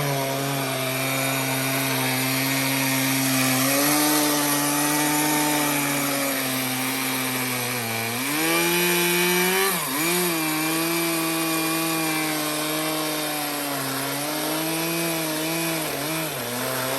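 Chainsaw in a chainsaw mill running at full throttle while ripping a cedar log lengthwise into a slab; the engine note holds steady, dips twice under load about eight and ten seconds in and recovers, and stops abruptly near the end.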